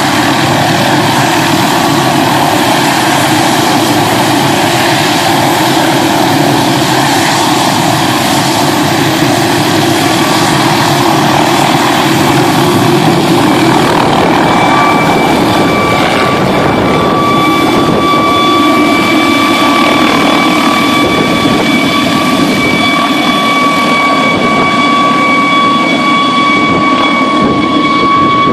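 Police helicopter's turbine engine and rotor running loud at full power, lifting off the ground and climbing away overhead. A steady high turbine whine comes up about halfway through and holds.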